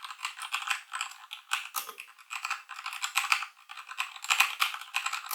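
Rapid typing on a Ziyoulang T60 (CPSTECH T60) 60% mechanical keyboard fitted with red linear switches: quick key strokes clacking in uneven bursts.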